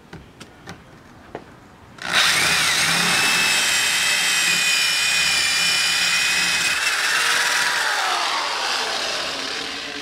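Cordless drill boring a pilot hole into a stucco wall. A few light clicks, then about two seconds in the drill starts with a loud, steady whine, and near the end its pitch falls as it winds down.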